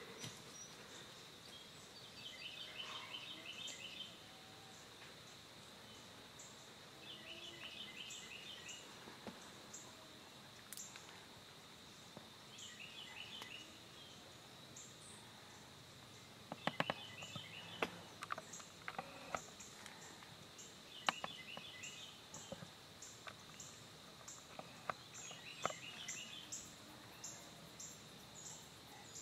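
Faint dusk field ambience: a bird gives a short burst of quick high notes every four to five seconds over a steady high insect trill with faint ticks. Several sharp close clicks and knocks come in the second half.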